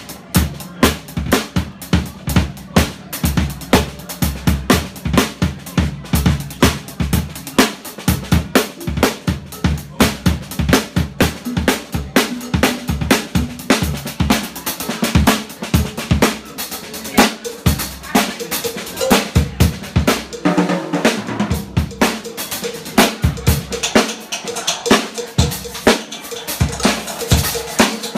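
Live drum kit played with sticks, including a Sabian cymbal: a busy, driving groove of snare, bass drum and cymbal hits. A held keyboard note sounds under the drums from about two-thirds of the way through.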